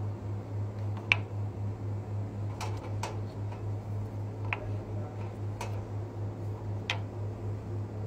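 Light clicks of hard chocolate bonbon shells being lifted out of and set down on a plastic mould, about six spread a second or so apart, over a steady low hum.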